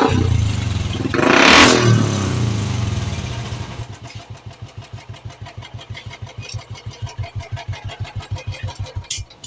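Royal Enfield Classic 350's single-cylinder engine revved once about a second and a half in, then settling to a slow, even idle thump of about five beats a second, and cutting off just before the end.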